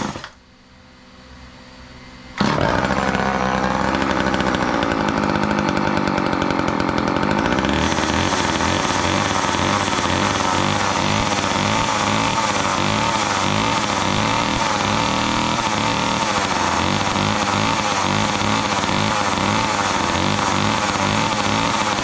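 Old two-stroke chainsaw engine, just brought back to life, running. It falls away just after the start, comes back abruptly about two seconds in, and then runs steadily, wavering a little at first.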